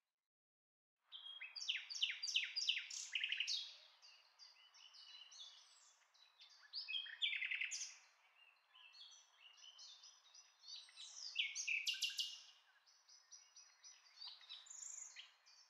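Small birds chirping and singing: quick runs of high, sharp notes in several separate bursts, the first starting about a second in.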